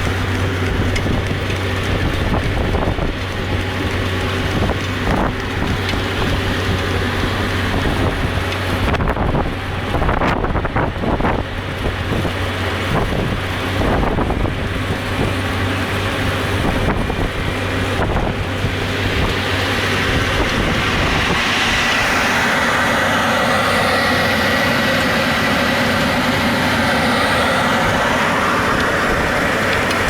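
Farm tractor engine running steadily while working a field. About two-thirds of the way through the sound turns brighter and hissier, with a faint steady whine over it.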